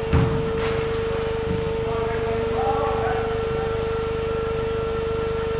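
A football being kicked makes one sharp thud just at the start. Faint distant shouts follow about two to three seconds in, all over a loud, steady electrical hum.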